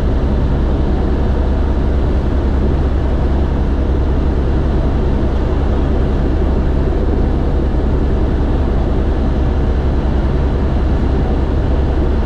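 Airbus H125 (AS350 B3e Esquilo) helicopter running, a loud, steady deep drone of rotor and turbine noise with no change in pitch or level.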